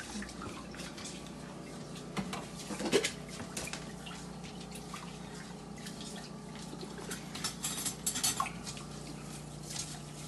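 Rice being washed in a pot: water splashing and dripping, with scattered light clinks of the pot and utensils. A faint steady hum runs underneath.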